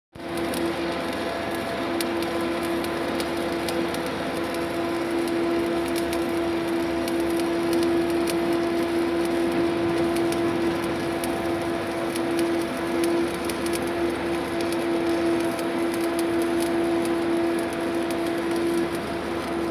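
Electric arc welding: a steady crackling and sizzling with many sharp pops, over a constant hum from the welding equipment.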